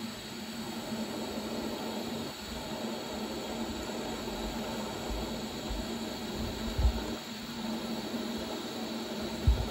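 Argon-shielded electric welding arc hissing steadily over a faint hum while a crack in the suspension is welded. Two dull thumps, one about seven seconds in and one near the end.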